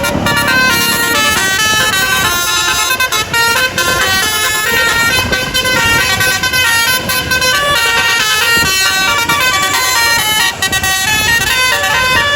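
Basuri telolet bus horn playing a continuous melody of quick, stepped notes, its several trumpets sounding together.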